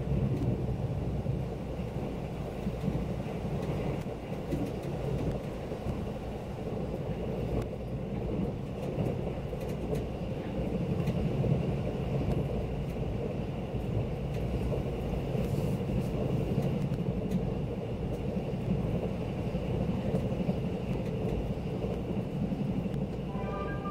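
Steady low rumble and rush of a KTX high-speed train running at speed, heard from inside the passenger cabin.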